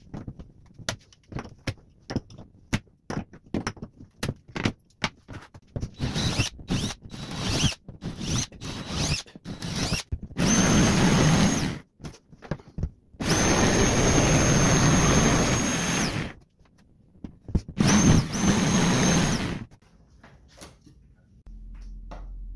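A run of sharp clicks and knocks as nails are pulled from a hardboard template with pliers. Then an electric jigsaw cuts through laminated particleboard in several runs with a steady high whine, the longest about three seconds.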